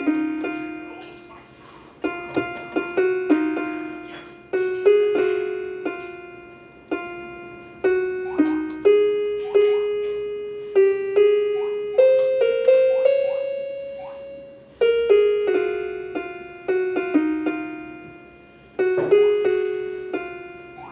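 Casio electronic keyboard on its harp voice playing a single-note melody. Each note is plucked and rings away, in short phrases that restart about every two seconds.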